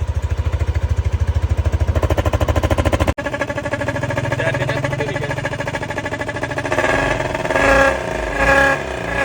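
Motorcycle exhaust idling with a rapid, even putter. After a cut about three seconds in, the exhaust blows through an elephant-trunk toy trumpet fitted to the pipe, giving a pitched horn-like tone that swells into loud blasts near the end as the engine is revved.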